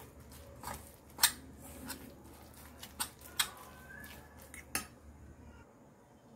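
Metal spoon stirring a stiff buckwheat-flour batter in a steel bowl: soft scraping with about half a dozen sharp clinks of the spoon against the bowl.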